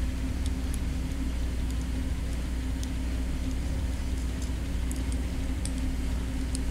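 Small steel bolts and T-nuts clicking faintly now and then as they are handled and fitted into a plastic plate by hand, over a steady low background hum.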